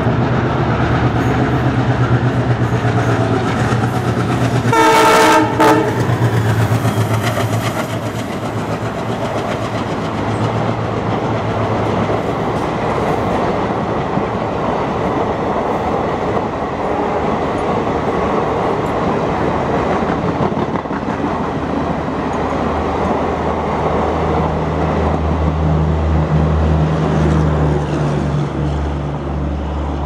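ALCO-built WDG-3A diesel locomotive passing with its engine chugging, sounding its horn in one short blast about five seconds in, the loudest moment. Then the rumble and clickety-clack of passenger coaches rolling past over the rail joints, with a steady low hum joining about three quarters of the way through.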